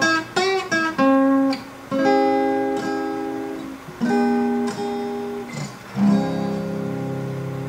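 Acoustic guitar music: quick plucked notes, then three chords struck about two seconds apart, each left to ring and fade.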